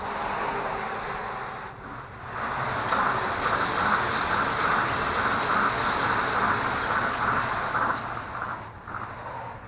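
A Tokyo Monorail train passing close by overhead: a loud rushing run with a regular clatter of about three beats a second, fading near the end.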